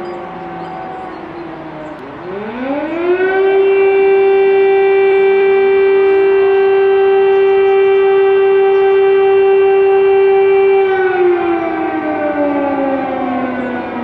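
Air raid siren wailing: its pitch sinks at first, then winds up steeply about two seconds in to a loud, steady held tone, which slowly falls away again for the last few seconds.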